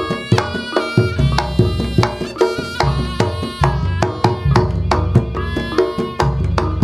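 Javanese Reog music: a traditional ensemble of hand drums and struck metal percussion with a pitched melody over it, played loud with heavy bass and frequent drum strokes.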